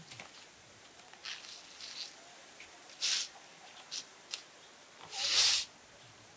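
Short rustling and crackling of hairy rambutan fruits being handled and shifted in a plastic basket, a few separate bursts with the longest and loudest about five seconds in.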